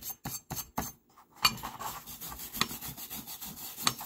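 A small hand wire brush scrubbing the heavily rusted iron head of an antique forged pick. First a few separate strokes, then a short pause, then steady back-and-forth scrubbing from about a second and a half in, with a few sharper scrapes.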